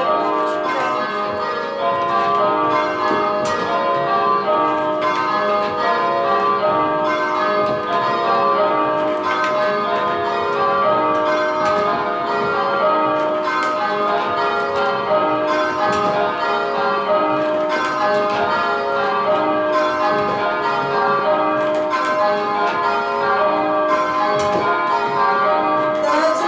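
Church tower bells rung full-circle by hand in change ringing, striking one after another in a steady, even rhythm. This is kaleidoscope ringing, with the bells in thirds and fourths place making long places.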